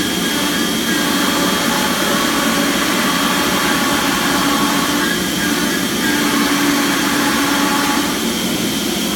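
CNC router cutting plywood cabinet parts: a steady high spindle whine over a loud, even rush of noise, with lower tones that shift a few times.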